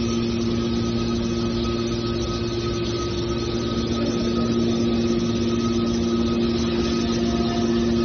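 Hydraulic scrap-metal baler's power unit running, a steady hum with a few fixed tones that hold the same pitch throughout.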